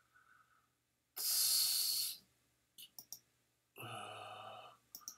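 A man's loud sigh into the microphone about a second in, then a few sharp computer-mouse clicks near three seconds, and a short voiced breath around four seconds.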